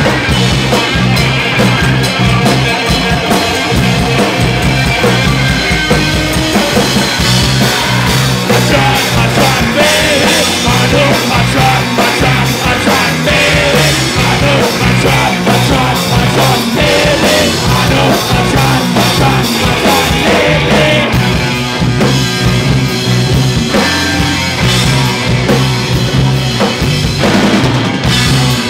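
A punk rock band playing live and loud: a drum kit pounding under electric guitar.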